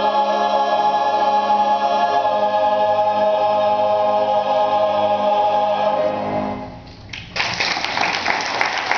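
Mixed choir holding a long final chord, which dies away about seven seconds in; after a brief pause the audience breaks into applause.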